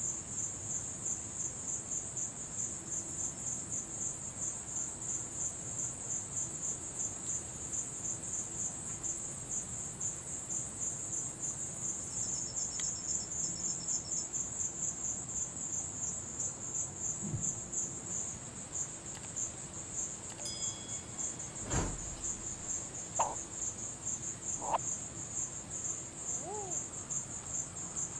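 Night insects chirping in a fast, even, high-pitched pulse that never lets up. A single sharp knock sounds about 22 seconds in, with a few short faint calls scattered after it.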